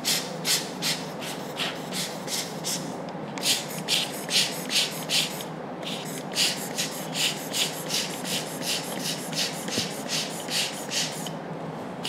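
Screwdriver tip scraping at the plastic housing of an Asus TUF FX504 laptop cooling fan in quick rhythmic strokes, about two or three a second, with brief pauses about three and six seconds in.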